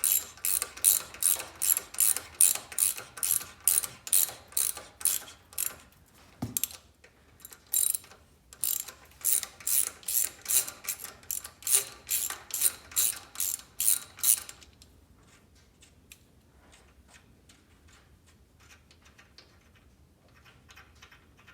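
Ratchet wrench clicking in quick, even back-strokes, about two to three a second, as a bolt is turned. It stops about two-thirds of the way through, leaving only a few faint ticks.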